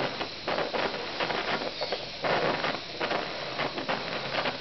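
Brown's gas (oxyhydrogen) torch flame hissing on a red-hot crystal, with irregular crackles through it.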